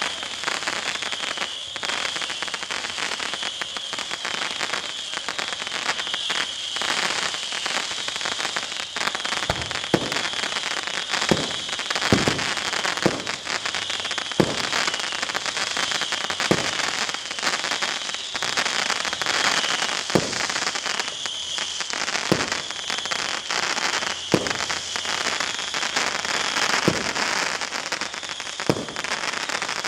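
Fireworks going off: dense, continuous crackling over a steady high hiss. From about ten seconds in, single loud bangs come every one to two seconds.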